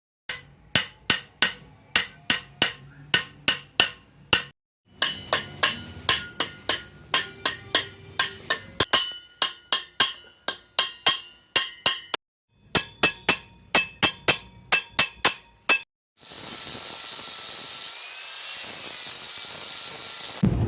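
Hammer blows on copper sheet, about three ringing strikes a second, in three runs with abrupt breaks between them. About four seconds from the end the strikes give way to a steady hissing noise.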